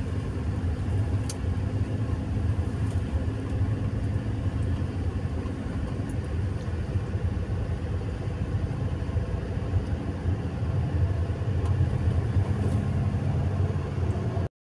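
A car's engine and road noise heard from inside the cabin while driving: a steady low hum that cuts off suddenly near the end.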